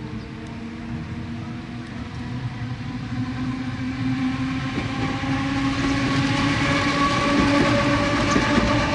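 Jōmō Electric Railway Deha 101 electric railcar approaching and growing steadily louder, its traction motors and gears whining in several tones that rise slightly in pitch as it gathers speed.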